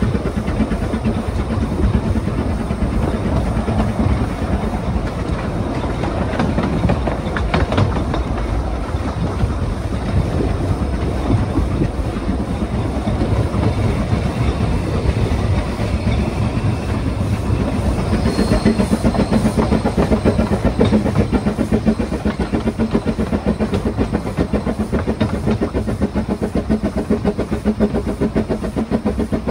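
Narrow-gauge steam locomotive running, heard from its own footplate: a steady rumble with wheels clattering on the rails, and a short high squeal about two-thirds of the way through.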